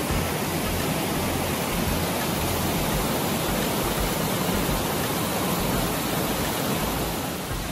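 Waterfall pouring close by: a steady, even rush of falling water.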